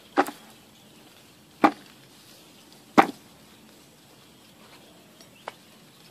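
Freshly dug cassava roots being knocked and chopped into a plastic bucket: three sharp woody knocks about a second and a half apart, then a fainter one near the end.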